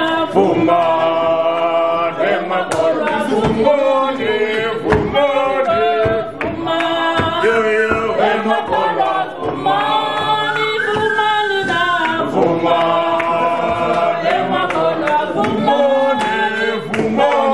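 A group of voices singing a lively song together without instruments, marked by sharp percussive hits.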